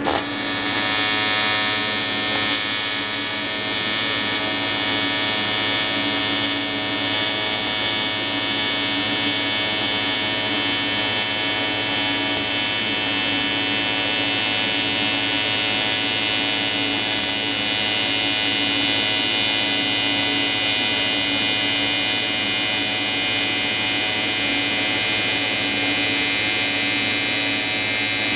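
AC TIG welding arc from an Everlast 325EXT on advanced square wave, struck abruptly and then buzzing steadily as a weld bead is laid on the aluminium intercooler.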